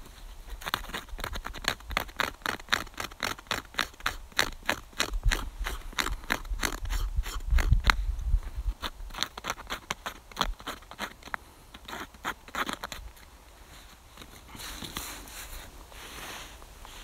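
A knife blade scraping a strip of birch bark in quick rhythmic strokes, about four a second, shaving it into tinder for a fire; the strokes stop about thirteen seconds in, and a few softer scrapes follow near the end.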